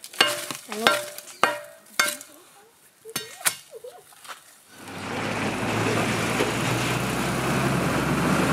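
Steel rebar bar striking and prying at a sandstone slab and the stony ground around it, a series of sharp ringing knocks about every half second. About five seconds in, the knocks give way to a steady hissing noise with a low hum.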